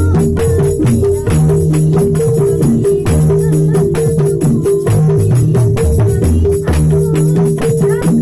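Live band music led by a pair of small hand drums played in a fast, busy rhythm, with held low notes changing underneath.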